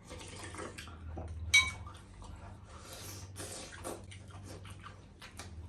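A spoon and dishes being handled over a soup bowl, with one sharp, ringing clink of metal on crockery about a second and a half in and softer scraping and clattering around it.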